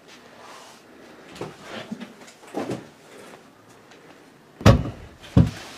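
A few soft bumps and shuffles, then two loud heavy bangs less than a second apart near the end, knocking sounds in a house.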